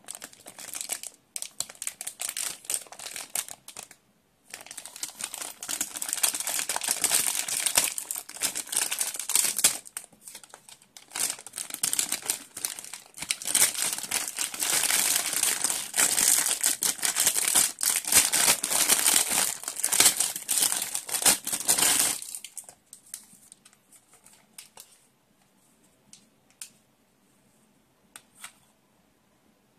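Clear plastic packaging crinkling as hands open and handle it. The dense crackling breaks off briefly about four seconds in and stops about two-thirds of the way through, leaving only a few faint clicks of handling.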